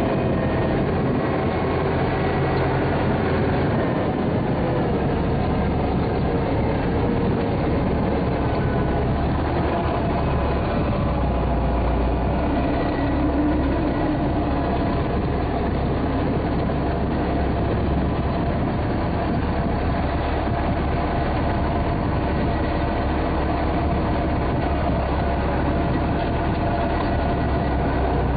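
A vehicle engine running steadily under way, a constant low drone with no breaks.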